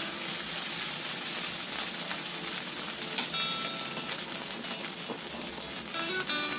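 Fried rice sizzling in a hot nonstick frying pan, a steady hiss, with one sharp click about three seconds in.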